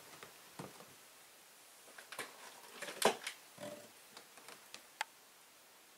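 A few soft knocks and a short creak as the lid of a storage bench is lifted and lightsaber hilts are taken out of it; the loudest knock comes about three seconds in.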